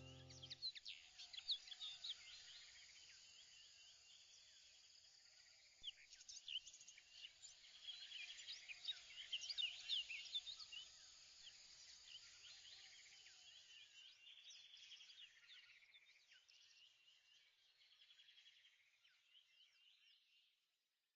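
Faint birdsong: many short chirps from several birds over a soft outdoor hiss, fading out near the end.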